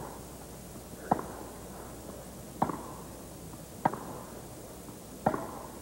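Tennis ball struck back and forth by racquets in a baseline rally: four sharp hits, each about 1.2 to 1.5 seconds apart, over a quiet, steady stadium hush.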